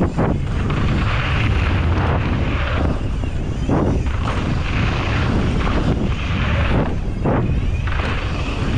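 Wind rushing over a point-of-view camera's microphone during a fast mountain-bike descent, with tyres rolling on a dirt trail and the bike rattling over rough ground. There are several sharp thumps as the bike lands or hits bumps, one near the start and another a little before four seconds in.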